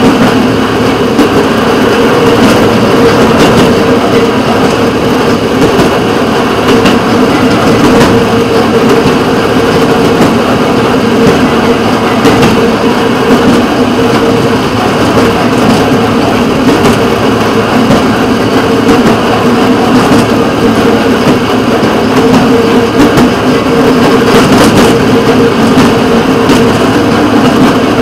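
Railroad motorcar (speeder) engine running steadily as it rolls along the track, with a steady drone and a few short clicks over the running noise.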